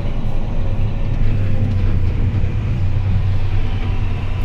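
Vehicle engine running steadily under way, an even low drone.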